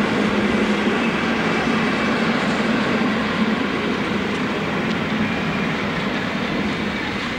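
Passenger coaches rolling past on the track: a steady rumble of wheels and running gear, growing slightly quieter toward the end.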